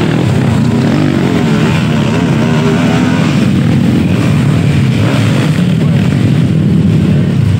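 Several dirt bike engines running and revving on a steep dirt climb, their pitch rising and falling.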